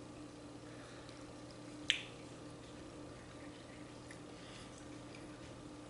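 A metal spoon clinks once sharply against a ceramic soup bowl about two seconds in, over a faint steady hum.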